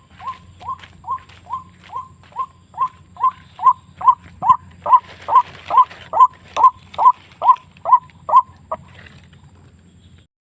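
White-breasted waterhen (ruak-ruak) calling: a long run of short hooked notes, about two and a half a second, growing louder midway and then stopping near the end.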